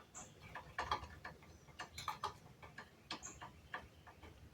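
Faint, irregular clicks and light taps of small metal mower engine parts being handled and fitted back together, several a second at times.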